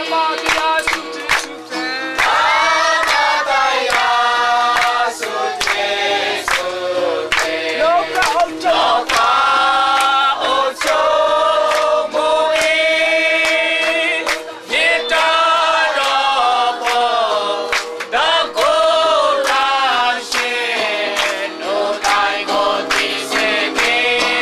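A group of voices singing a hymn together, with frequent hand claps keeping time.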